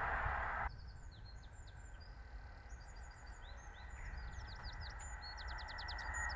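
A loud rushing noise cuts off abruptly under a second in. Small birds then sing with quick chirps and sweeping calls over a low rumble. From about four seconds in, the rail noise of an approaching High Speed Train slowly grows louder.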